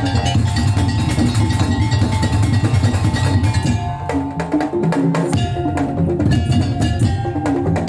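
Madurese tongtong (daul) music: a dense, fast beat on wooden slit drums and drums, with a melody of held notes stepping over it.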